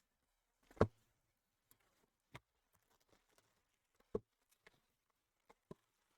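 A few short, scattered taps and clicks of trading cards being handled and set down, with the loudest about a second in and another a little after four seconds.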